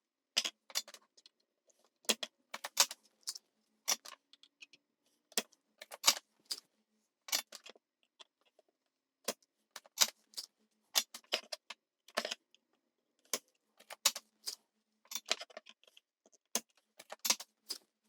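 Irregular sharp clicks and snaps, many in close pairs, from hand tools clearing old solder out of a circuit board's joints.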